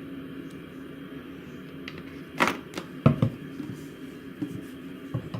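A few short clicks and knocks from handling the lotion bottle and bowl, clustered about halfway through with one more near the end, over a steady low hum.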